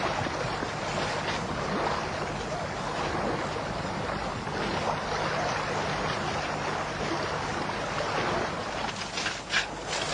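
Fast river water rushing in a steady noisy wash over a faint low hum, with a few brief sharper sounds near the end.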